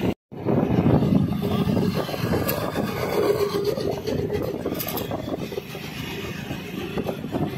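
Wind rushing over the microphone and road noise from riding along a road in an open vehicle, a steady rumbling hiss that drops out for a moment just after the start.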